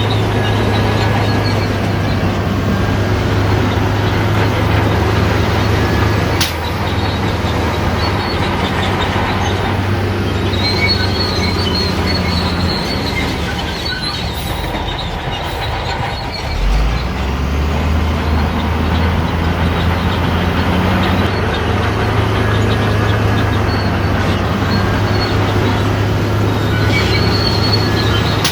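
Shantui crawler bulldozer's diesel engine running steadily under work, with short high squeals from its steel tracks coming and going. Its engine note dips and picks up again a little past halfway.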